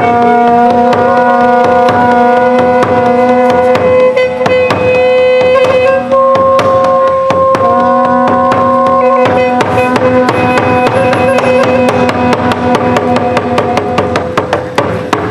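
Khmer traditional music: a wind instrument holds long, steady notes over fast, busy drumming.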